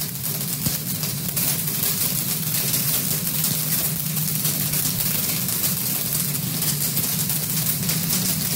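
Hail falling on a grassy lawn: a dense, steady clatter of many small impacts, with a low steady hum underneath.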